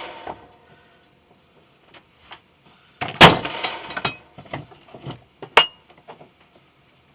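Metal tools clinking and clattering on a workbench, with a loud clatter about three seconds in and a sharp ringing clink a little later.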